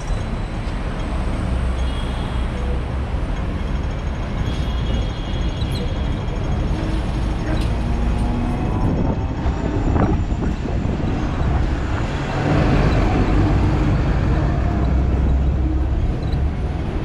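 Hong Kong double-decker tram running along street tracks: a steady low rumble of the wheels on the rails, with city traffic around it. Another tram passes close alongside near the middle, and the rumble gets louder about twelve seconds in.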